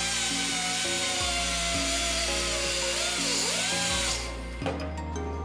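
Air-powered cutoff tool with a small abrasive cutoff wheel cutting through a steel muffler mounting bracket: a high whine with a hissing grind, its pitch wavering and dipping as the wheel bites, stopping about four seconds in. Background music plays underneath.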